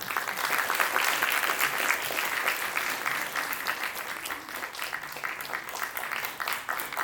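Audience applauding in a hall, the clapping beginning suddenly and continuing steadily.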